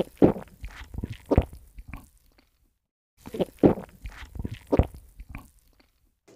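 Gulping sounds of someone drinking water from a plastic bottle, in two runs of quick swallows with a silent gap of about a second between them.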